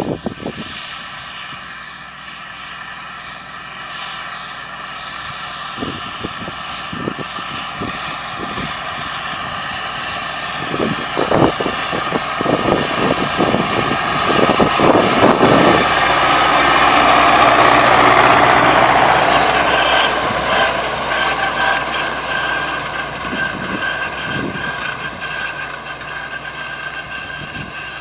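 MTZ tractor's four-cylinder diesel engine running steadily while pulling a mower. It grows louder as the tractor comes closer, is loudest about two-thirds of the way in, then fades as it moves away, with some knocking clatter near the middle.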